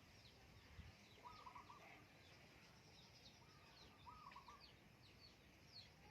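Birds calling faintly in the background: many short, high, falling chirps, and a lower, clear call that comes twice, about three seconds apart.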